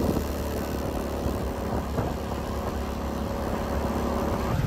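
A motor vehicle's engine running steadily: a low, even hum.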